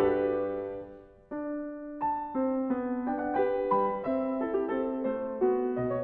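Background piano music. The playing dies away about a second in, then the piano comes back in with a slow run of single notes.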